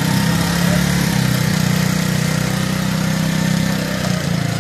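Small motorcycle engine running steadily as it pulls away under load, towing a cart-mounted stationary engine to tow-start it.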